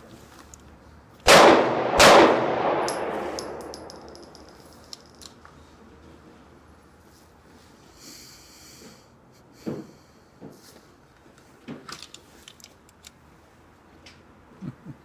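Two pistol shots from a SCCY CPX-2 9mm, fired about two-thirds of a second apart, each ringing out in a long echo under the range's roof. Then come a few light clicks and knocks as the pistol is handled.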